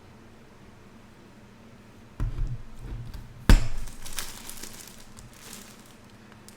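Handling of the hoodie's packaging: a dull bump about two seconds in, a sharp knock a second later that is the loudest sound, then light rustling and crinkling of the wrapping.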